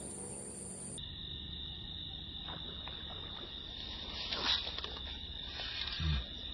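Insects buzzing steadily at a high pitch, with a splash on the water about four and a half seconds in as a snakehead strikes a soft frog lure. A low thump follows near the end.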